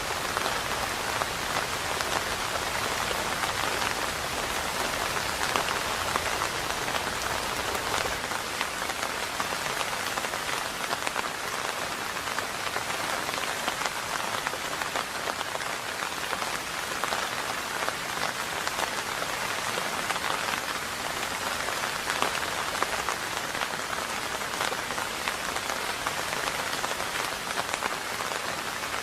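Steady rain: a dense, even patter of many close drops, holding at the same strength throughout.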